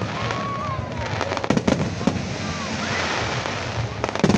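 Fireworks display: a continuous dense crackle of bursting shells, with clusters of sharp bangs about a second and a half in and again near the end, and thin whistling tones gliding over it.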